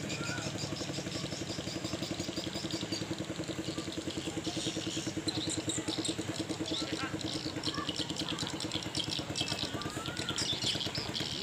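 Katinting longtail boat engine running steadily under way, cutting off suddenly near the end. Birds chirp over it.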